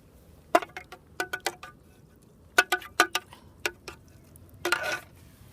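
A metal utensil clinking and tapping against metal camp cookware while someone eats from it: a dozen or so sharp taps in small clusters, then a longer scrape near the end.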